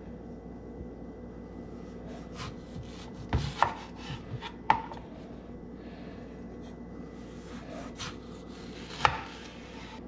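A chef's knife slicing through a mango on a plastic cutting board, the blade knocking sharply on the board a few times, most clearly about halfway and near the end, with soft slicing scrapes between.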